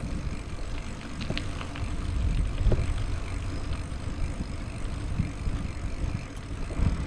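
Wind buffeting the camera's microphone as a mountain bike rolls along a paved road, a rough low rumble with a few light clicks from the bike.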